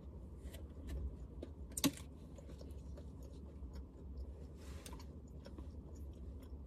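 Faint clicks and crackles of a clear plastic takeaway container being handled during eating, with one sharper click about two seconds in.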